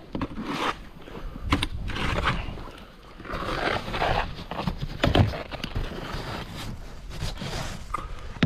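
Snow being scraped and crunched in a series of irregular strokes while it is cleared.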